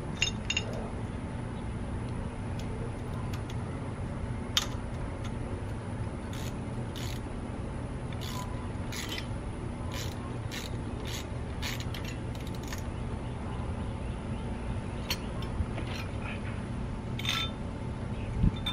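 Hand ratchet wrench clicking in short, irregular strokes as a bolt is worked at a car's wheel hub and brake, with an occasional metal tool clink.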